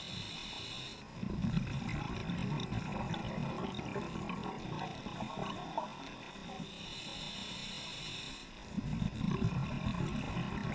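Scuba diver breathing through a regulator. There is a hissing inhale at the start, then a long rumbling burst of exhaled bubbles. The cycle repeats with a second inhale hiss about seven seconds in and another rush of bubbles near the end.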